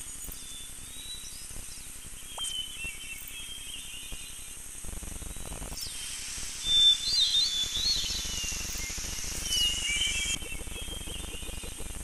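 Birds chirping with short, high twittering calls over a steady hiss. A low rumble comes in about five seconds in and carries on beneath them.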